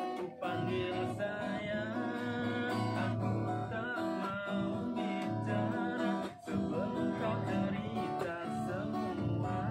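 Acoustic guitar strummed and picked under a sung melody whose pitch wavers and bends in ornamented runs, with a short break about six and a half seconds in.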